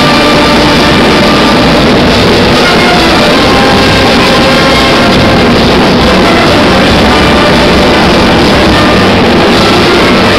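Brass street band of trumpets, tuba and bass drum playing loudly and continuously in a crowded hall.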